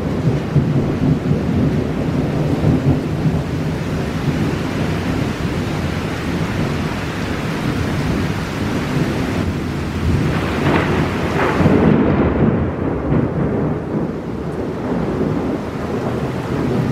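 Heavy rain pouring down during a thunderstorm, with a low rumble of thunder underneath. The hiss of the rain turns duller about two-thirds of the way through.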